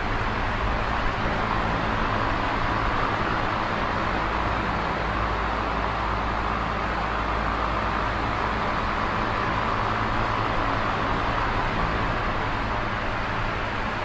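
Electric fan running steadily: an even rush of air with a low hum underneath.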